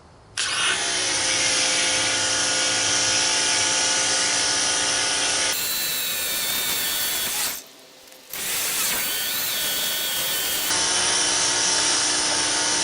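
Electric pressure washer's pump motor kicking on as the trigger is squeezed and running steadily with a whine and the hiss of the spray. It cuts out for under a second a little past halfway, as the trigger is let go and pressure builds, then starts again.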